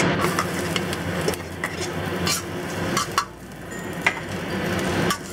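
Minced garlic sizzling in hot oil in a wok, with several sharp clicks of the utensil tapping the bowl and wok as the garlic is scraped in.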